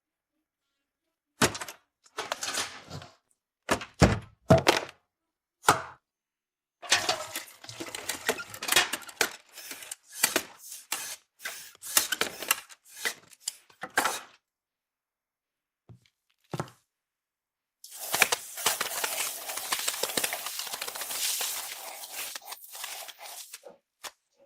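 Cartoon sound effects of objects being handled: a few separate knocks and thuds, then a long run of rattling clatter, two short knocks, and near the end a longer rough, noisy stretch full of small clicks.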